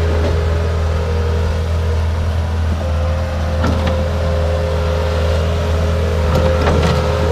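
Bobcat skid-steer loader's engine running steadily, with a steady whine above its hum and a couple of faint knocks.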